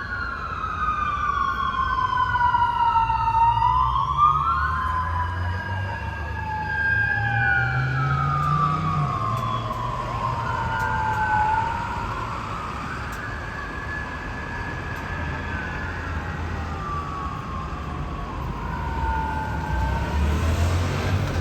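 Sirens of two Japanese police motorcycles wailing together, slow rising and falling sweeps slightly out of step with each other, over the motorcycles' engines. An engine revs up about eight seconds in, and the engine sound grows louder near the end.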